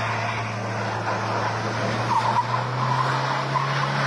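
A car engine running hard while its tyres skid and squeal in a stunt, with short squeals around the middle; the engine note steps up in pitch about two and a half seconds in.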